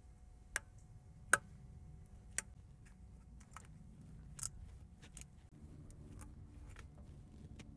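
A few scattered light clicks and taps of hand tools and parts being handled, the sharpest about a second and a half in.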